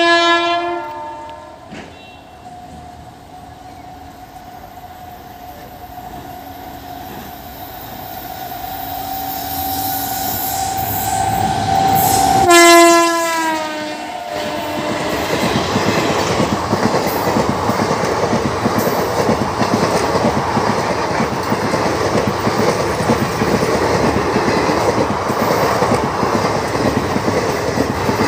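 Indian Railways WAG-9H electric locomotive's air horn ending a blast as the train approaches, the train growing louder, then a second blast about 12 seconds in that drops in pitch as the locomotive passes close by. After that, the steady clickety-clack of passenger coaches' wheels over the rail joints as the train runs past at speed.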